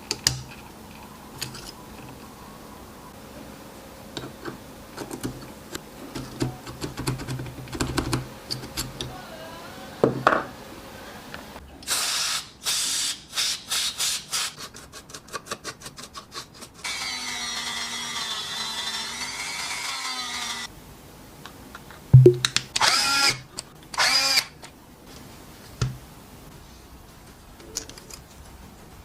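EZ6225 cordless drill/driver motor run in short trigger bursts, then held on steadily for about four seconds, then a couple more brief bursts, with light clicks of handling before it starts.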